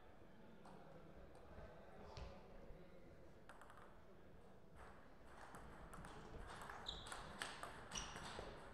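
Table tennis rally: a celluloid-type ball clicking sharply off the paddles and the table, a few hits a second, starting about six seconds in, after a single tap about two seconds in, over a faint steady room hum.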